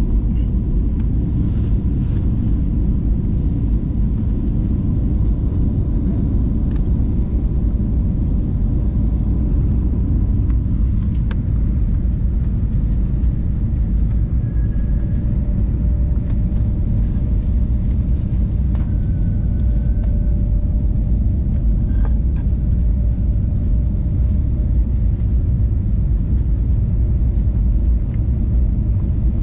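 Airliner cabin noise on final approach: a steady low rumble of the jet engines and rushing air, with a faint steady whine and a few faint clicks.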